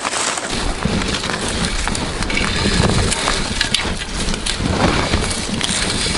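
Footsteps crunching and plunging through deep snow, with dry twigs and brush scraping and snapping against clothing, and low wind rumble on the microphone from about half a second in.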